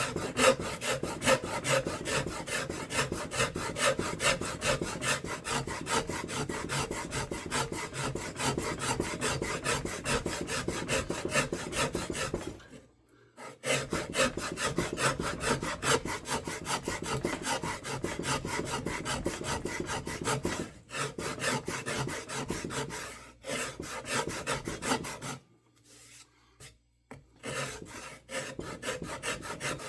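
Hand rasp scraping across a wooden axe handle in quick, repeated back-and-forth strokes, cutting the flats of an octagonal grip. The stroking stops for about a second about 13 s in, and near the end it turns into lighter, scattered strokes.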